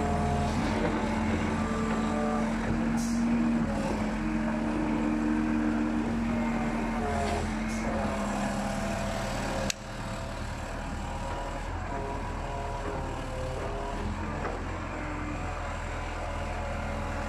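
1974 Lännen UM 1680M wheeled excavator's diesel engine running under load while digging, with a whine from the hydraulics that shifts in pitch as the boom and bucket move.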